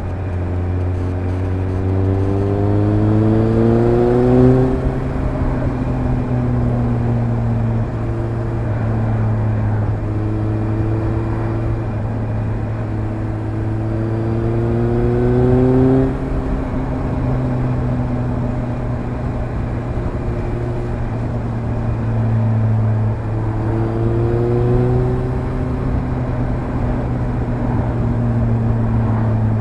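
Suzuki GSR750's inline-four engine through a Fuel Diablo stainless micro slip-on exhaust with the dB-killer fitted, running at a steady road-speed cruise. Three times, near the start, about halfway and near the end, the engine note rises under throttle and then drops back sharply before settling into a steady drone.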